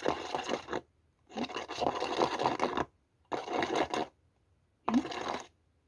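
Scratchy rubbing and scraping of fingers working soft chocolate in a clear plastic mould, in four short spells with silent gaps between.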